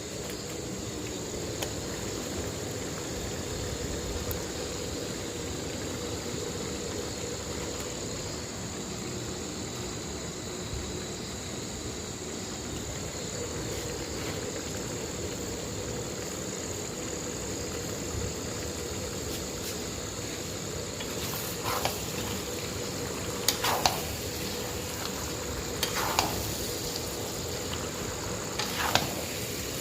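Chicken frying in a pot with a steady sizzle, and a few short sharp scrapes of stirring near the end.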